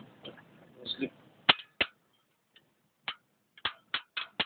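A string of sharp clicks, about eight of them, irregularly spaced, starting about one and a half seconds in and coming closer together near the end.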